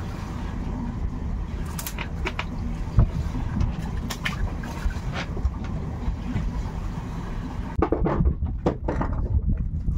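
Steady low rumble of a fishing boat's engine with wind at sea, with a few small clicks and knocks; one sharp knock about three seconds in.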